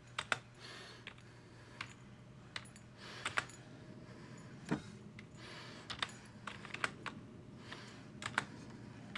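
Computer keyboard keys pressed by a cat's paws: irregular, scattered key clicks, with softer shuffling between them.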